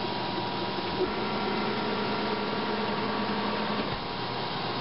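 Milling machine running steadily, its end mill cutting a metal workpiece on a pass to full depth: a steady mechanical hum with a thin whine, and a short knock about a second in.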